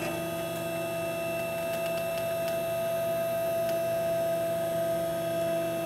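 Steady electrical hum with a thin high whine from the Laguna IQ CNC router's electronics, just switched back on. The tones hold level and stop near the end.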